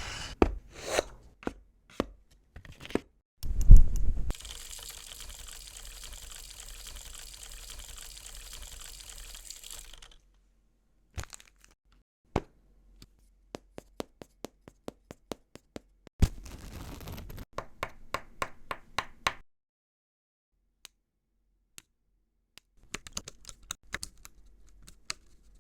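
A string of foley sound effects: sharp clicks, cracks and crunches in quick runs, with a loud thump about four seconds in followed by a steady hiss for about six seconds.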